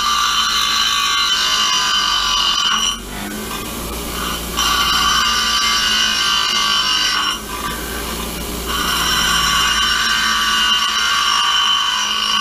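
Bench grinder wheel grinding a small steel part, throwing sparks, in three passes of a few seconds each with short breaks where the grinder runs with no load.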